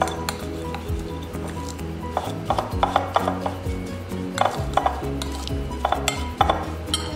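Metal spoon scraping and clinking against a glass bowl while stirring a thick spice-and-olive-oil paste. The clinks come in short clusters every second or two.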